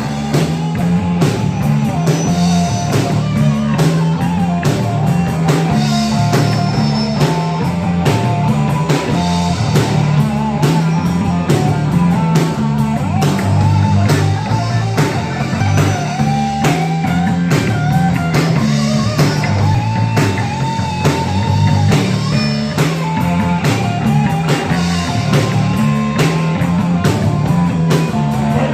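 Rock band playing an instrumental passage: an electric guitar lead line with bent notes over a repeating bass riff and a steady drum kit beat.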